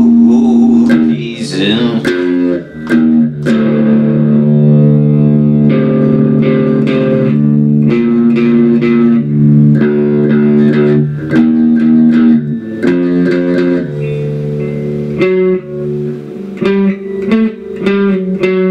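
Guitar playing a rock part: picked notes and chords that ring on between sharp attacks, the pitch changing every second or two.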